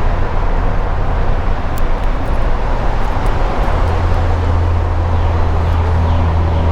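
Steady highway traffic noise, cars and trucks passing on the roadway, with a deep low rumble growing stronger a little past halfway through.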